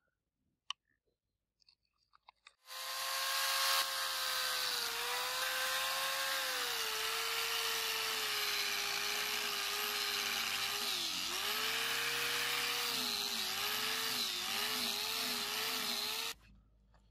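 Handheld electric angle grinder with a 240-grit sanding disc switched on about three seconds in, wet-sanding a steel sword blade. Its motor whine dips in pitch each time it is pressed onto the blade and recovers, and it switches off shortly before the end.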